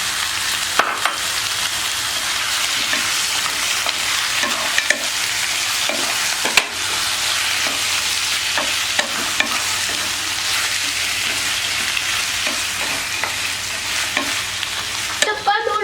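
Chicken curry frying and sizzling in a hot pan while it is stirred, with a spoon scraping and knocking against the pan now and then. The masala is starting to catch on the bottom of the pan.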